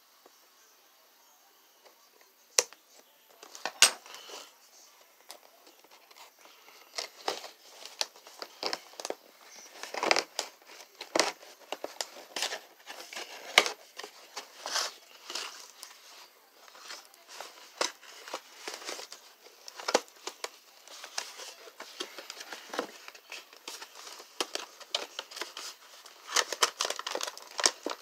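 Scissors cutting the tape on a toy's cardboard box, then the cardboard and plastic packaging being handled and pulled open: irregular snips, clicks and crinkling rustles that begin a couple of seconds in and grow denser near the end.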